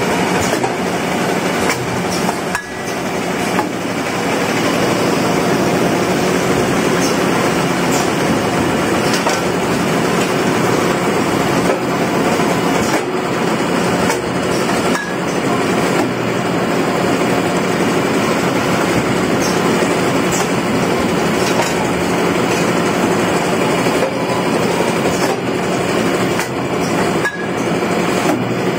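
Automatic paper straw packaging machine running, a steady, loud mechanical clatter.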